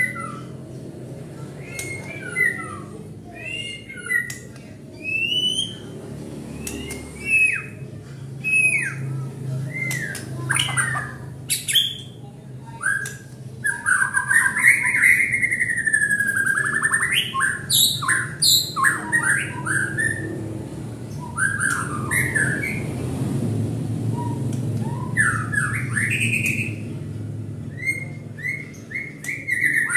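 White-rumped shama (long-tailed murai batu) singing: a varied run of short whistled notes that slide up and down, mixed with short harsh notes. About halfway through comes its loudest passage, a long warbling phrase.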